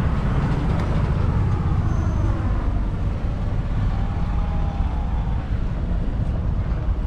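Wind rumbling and buffeting on the microphone outdoors, a steady, fluctuating low rumble.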